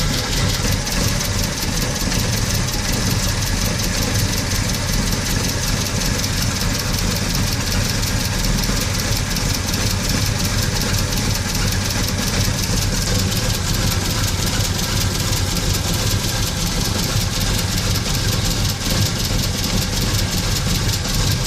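Volkswagen Gol CL's 1.6 AP four-cylinder engine idling steadily with a rapid, even ticking knock. The noise shows up only while the engine is cold and goes away after a few minutes of running; the owner does not know its cause.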